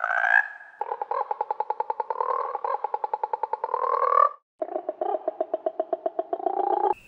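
A frog calling in long, rapid pulsed trills, about ten pulses a second. One trill ends shortly after the start, then two more follow, each a few seconds long and rising slightly in pitch toward its end.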